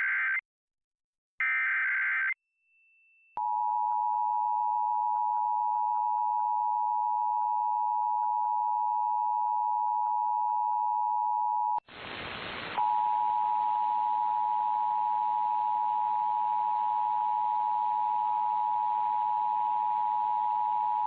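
Emergency Alert System required monthly test: the last two bursts of the SAME digital header, a screechy data tone, then after a short gap the EAS two-tone attention signal (853 and 960 Hz sounded together), held steady. About twelve seconds in a burst of hiss breaks in, and the attention tone carries on over steady hiss.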